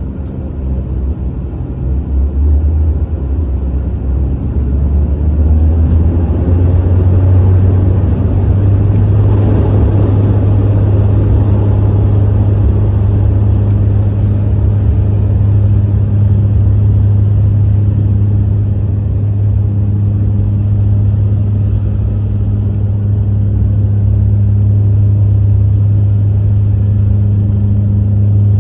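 Dash 8-Q400's Pratt & Whitney PW150A turboprop engines spooling up to takeoff power, heard from inside the cabin right beside the propeller. A high whine rises in pitch over the first few seconds as the sound grows louder, then it settles into a loud, steady, low propeller drone through the takeoff roll.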